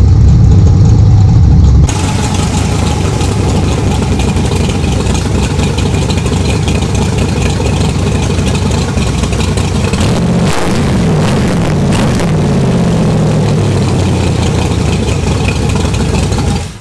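Chevy 350 small-block V8 with a solid-lifter cam, running on an engine test stand through stainless headers and a Thrush muffler with a deep muscle-car tone. It runs loud and steady, gets somewhat quieter about two seconds in, swings up and down in revs for a couple of seconds about two-thirds of the way through, and shuts off at the very end.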